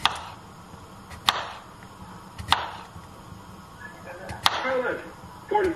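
Kitchen knife chopping through a cucumber onto a cutting board: five sharp chops, roughly one every second and a bit.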